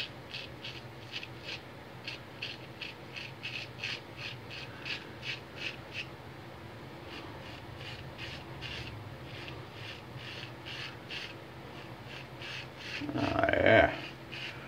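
Single-edge Ever Ready lather-catcher safety razor with a PAL blade scraping through lathered stubble in short strokes, about three a second at first, then fainter strokes after a pause. A brief louder noise comes near the end.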